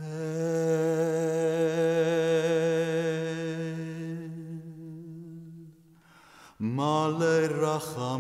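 A man's voice chanting without accompaniment: one long held note that wavers slightly and fades out after about five seconds, then a new phrase beginning with a rising glide near the end.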